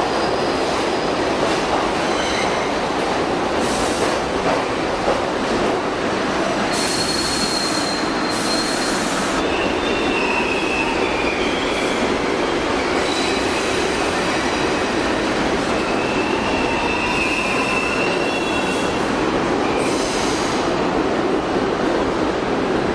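New York City subway train running through the station: a steady rumble of steel wheels on the rails, with short high-pitched wheel squeals coming and going.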